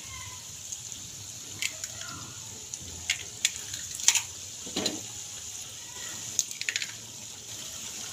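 Onion-tomato masala sizzling in hot oil in a frying pan as whole raw eggs are added, a steady high hiss with scattered sharp pops and clicks.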